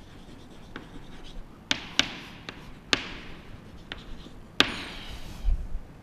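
Chalk writing on a blackboard: faint scratchy strokes broken by a few sharp taps of the chalk against the board.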